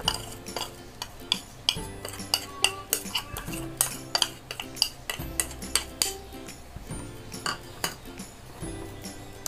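A spoon and cup tapping and scraping against a small plastic sieve as cocoa powder is sifted through it: many sharp, irregular clicks, a few each second. Soft music underneath.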